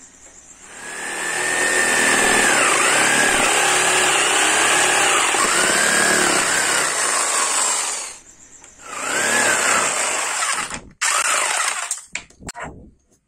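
Makita electric jigsaw cutting through a wooden board: the motor's whine dips and recovers again and again as the blade bites, running for about seven seconds before stopping. A second, shorter cut follows about a second later, then a few knocks near the end.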